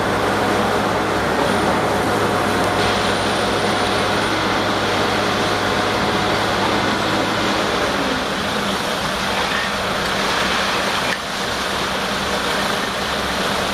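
Engine of a tracked pile-drilling rig running steadily beside a steel drill casing, its low note shifting about eight seconds in.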